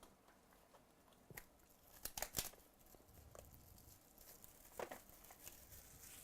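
Packaging being torn open and crinkled by hand, heard faintly as scattered crackles and a few short clicks, busiest about two seconds in.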